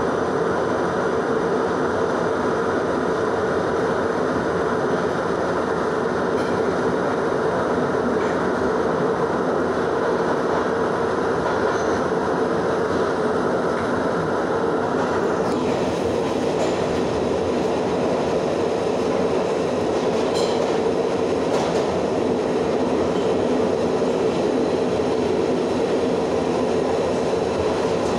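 R62 subway train running through a tunnel, heard from inside the car: a steady loud rumble and rush of wheels on rail. About halfway through, the higher hiss above the rumble drops away.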